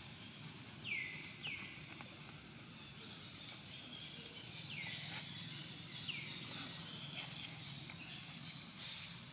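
Four short, high chirps, each sliding quickly down in pitch, twice in quick succession and then twice more a few seconds later, over steady outdoor background noise.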